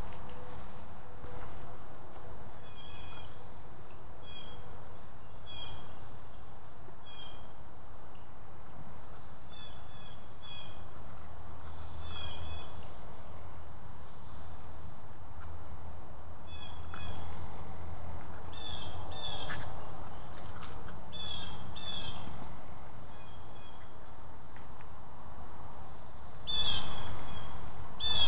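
Outdoor insect and bird ambience: a steady high insect drone, with short high chirps recurring about once a second, often in pairs. A brief louder noise comes near the end.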